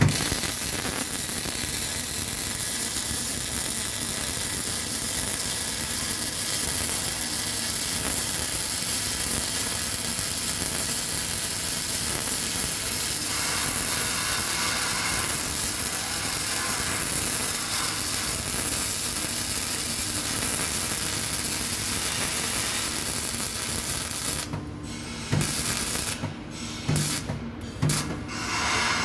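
Electric arc welding: the arc crackles and sizzles steadily while a fillet weld is run in the flat 'boat' position. Near the end the arc breaks off and is struck again several times in short bursts.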